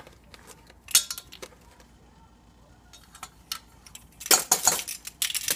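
Clicks and clinks from a ring of plastic measuring spoons as a teaspoon of onion powder is measured out and shaken over sliced bananas in a metal pot. There is a sharp click about a second in, then a quiet stretch, then a quick cluster of clicks and clatter near the end.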